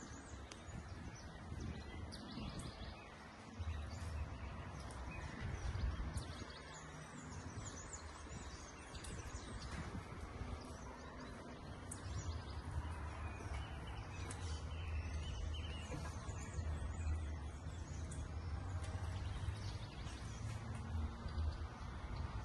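Outdoor ambience: small birds chirping in short, high calls over a steady low rumble.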